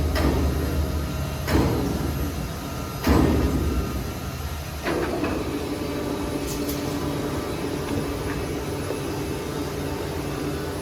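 Heavy timber-sawing machinery running with a steady low drone, broken by four loud clunks over the first five seconds, then settling into a steadier hum.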